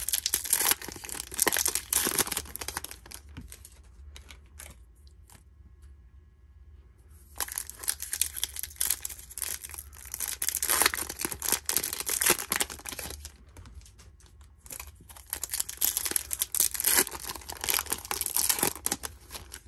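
Foil wrapper of a Topps Chrome baseball card pack crinkling and tearing as it is handled and ripped open by hand. It comes in three spells, with quieter gaps about four seconds in and again around fourteen seconds in.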